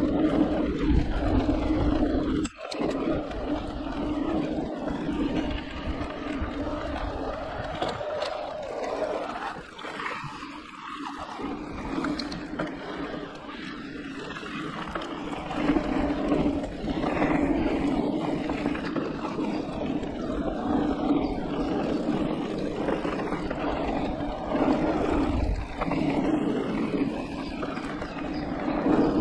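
Electric mountain bike ridden along dirt singletrack: wind buffeting the camera microphone and tyres rolling over dirt, under a steady hum. The sound drops out sharply for a moment about two and a half seconds in and eases off briefly around ten seconds.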